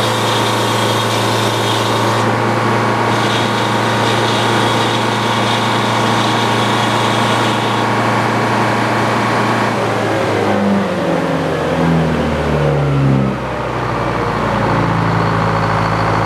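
Engine powering an antique Frick sawmill, running steadily; about ten seconds in its speed wavers and drops, then settles at a lower steady note.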